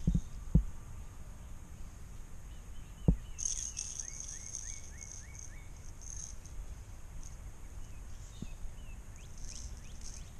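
Birds calling: a run of short, quick falling chirps begins a few seconds in, over a high, steady trilling call, with more chirps near the end. A few sharp knocks come in the first three seconds, and a low wind rumble runs underneath.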